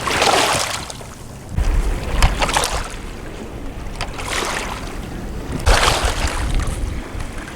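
Small waves washing in over a rocky shore, the hiss of water swelling and fading about every two seconds. Wind rumbles on the microphone from about a second and a half in.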